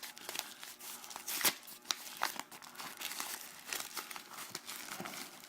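Packaging crinkling and rustling in irregular crackles as a package is unwrapped by hand, with a sharper crackle about a second and a half in.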